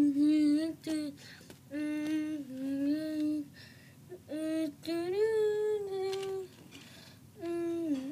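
A high-pitched voice humming a wordless tune in a string of held notes, each phrase lasting about a second, with short breaks between them.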